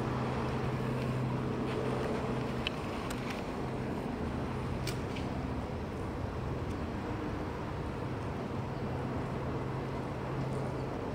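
Steady low mechanical hum of a nearby vehicle or machine over city background noise, easing near the end, with a few faint ticks.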